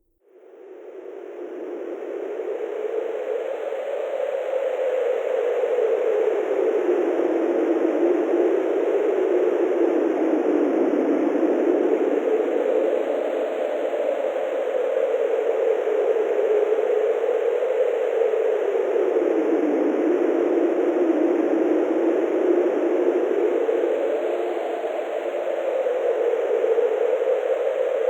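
Wind sound effect: a rushing wind that fades in over the first few seconds, then blows steadily, its pitch slowly rising and falling.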